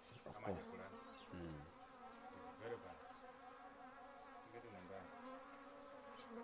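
Honeybees buzzing, a faint steady hum of wingbeats.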